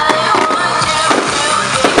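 Loud festival music with a wavering high melody line, with a few sharp firecracker bangs going off over it.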